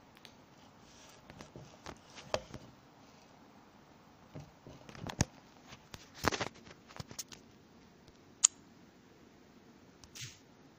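Scattered light clicks and knocks of handling, with one sharp click about eight and a half seconds in the loudest. No sewing machine running.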